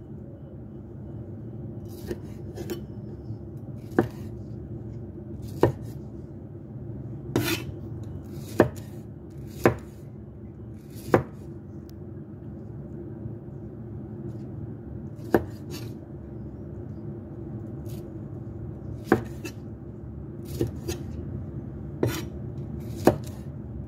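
A cleaver cutting through tomatoes and knocking on a thick wooden chopping block: about fifteen sharp knocks at an uneven pace, one every second or two with a longer pause partway through, over a steady low hum.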